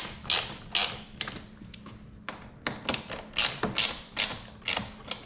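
Ratcheting screwdriver clicking in short repeated strokes, about two a second, as screws are run down into a car's rear spoiler.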